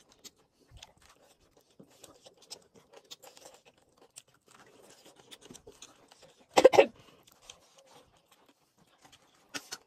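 Crunching and chewing on cooked corn on the cob: scattered small crackles, with one louder burst about two-thirds of the way through.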